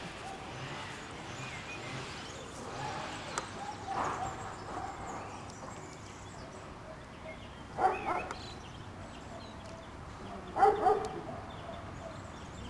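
Five-week-old Doberman puppies yipping and barking, with two louder yaps, one about eight seconds in and one near the end.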